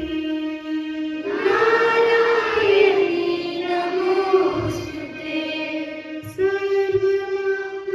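A group of children singing a slow song in chorus, holding long notes that change pitch every second or two.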